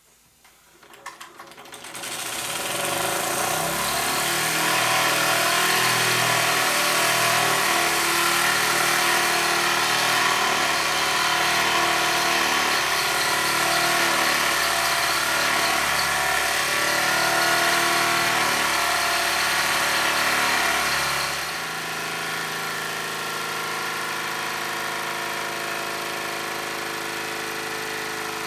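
Wilesco D20 model steam engine running fast under live steam, a steady mechanical beat over a hiss of steam. It comes in a second or two in and drops to a quieter, lower run about three-quarters of the way through.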